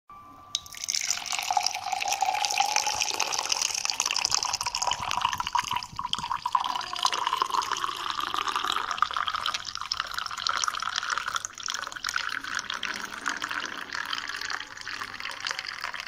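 Liquid poured in a thin stream into a glass, splashing and trickling steadily, the pitch slowly rising as the glass fills.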